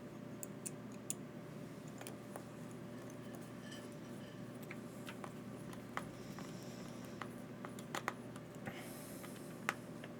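Scattered light clicks and taps of small parts and tools being handled on a workbench, irregular and about a dozen in all, the sharpest one near the end, over a steady low hum.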